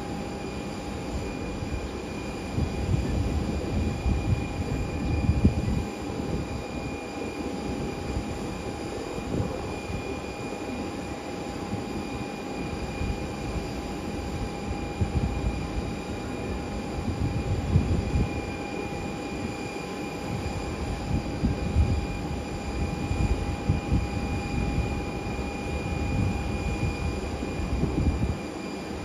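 Distant twin-engine jet airliner taxiing after landing, its engines giving a steady whine with several fixed pitches. Uneven low rumble of wind gusting on the microphone underneath.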